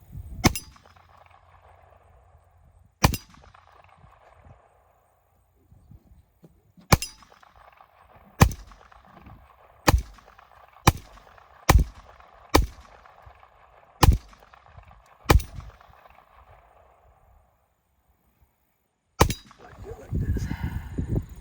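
A handgun being fired eleven times at a target, single shots at an uneven pace with a quicker run of about one a second through the middle, each crack followed by a ringing echo that dies away over a second or two.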